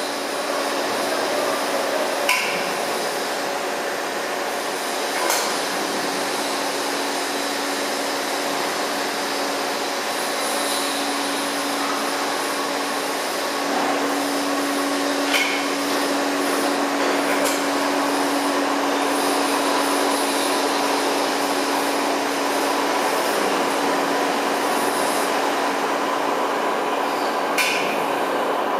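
Plastic granulator with a feeder lift running: a steady mechanical din with a constant hum, broken by a handful of sharp knocks as material is struck by the rotor.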